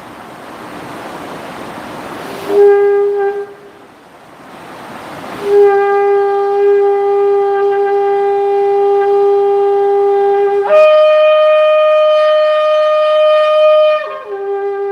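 A 92-centimetre shofar blown: a short blast about two and a half seconds in, then a long steady blast from about five seconds that jumps up to a higher note near eleven seconds and drops back to the lower note about three seconds later. Breathy rushing noise comes before the blasts.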